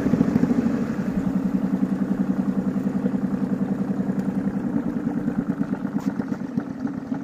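Small engine of a wooden river boat running steadily under way, a fast, even putter.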